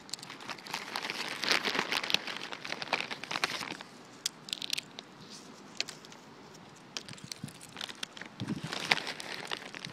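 A plastic chip bag crinkling as it is handled. It comes in two bouts, over the first few seconds and again near the end. Between the bouts come scattered sharp taps, typical of a mallard hen's bill pecking chip crumbs off wooden dock boards.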